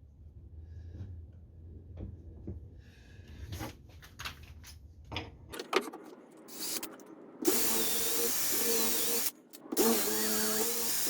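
Light handling taps and knocks, then an electric drill runs, boring 8 mm dowel holes in timber: it runs for about two seconds, stops briefly, then starts again.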